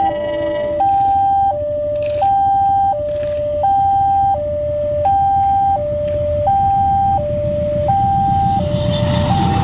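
Railway level crossing's electronic two-tone warning alarm sounding for an approaching train, switching between a higher and a lower tone about every three-quarters of a second. Near the end the train's rumble grows and starts to cover the alarm.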